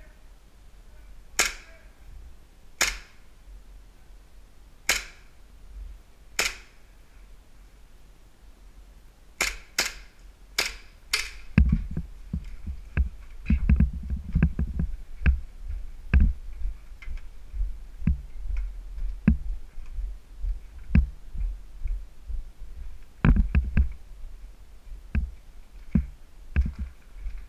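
SMG-8 gas blowback airsoft submachine gun firing single shots: four spaced cracks in the first seven seconds, then a quick string of five about ten seconds in. After that, a long run of dull thuds and knocks from footsteps and gear as the player moves over the debris-strewn floor.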